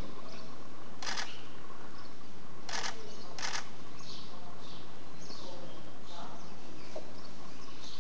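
Single-lens reflex camera shutters firing in short rapid bursts: once about a second in, then twice close together around three seconds.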